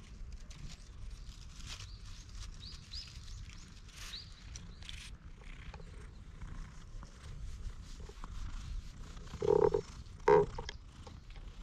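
A stray cat being petted gives two short, loud calls about a second apart near the end, over a low steady background with a few faint high bird chirps in the first half.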